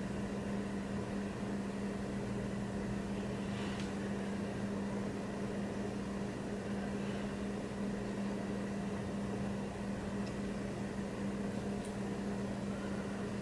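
A steady low hum over a constant hiss, with two faint light ticks, about four seconds in and near the end.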